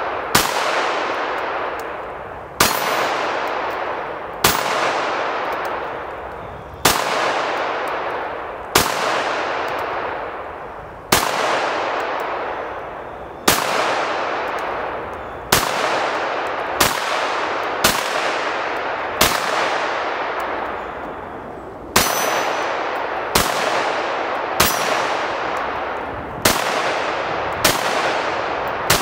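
Smith & Wesson .22 Magnum semi-automatic pistol firing loud single shots, about twenty of them, one every second or two, each with a long fading ring. Steel plate targets clang on the hits. The pistol cycles every round of Armscor 40-grain jacketed hollow points without a failure.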